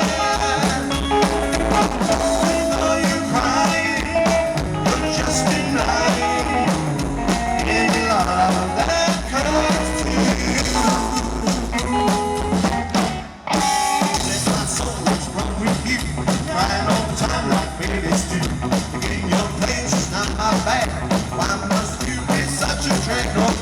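Live rockabilly trio playing an instrumental passage: electric guitar lead over upright bass and drums. The music drops out for a split second about halfway through, then carries on.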